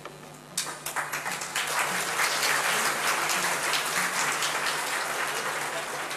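Audience applause in a hall, breaking out suddenly about half a second in, swelling to a peak and then carrying on steadily.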